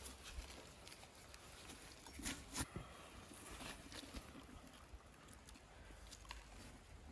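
Faint hand sounds of salt being rubbed and pressed into a raw whole lamb carcass, soft rustling and patting on the meat, with a couple of light taps a little over two seconds in.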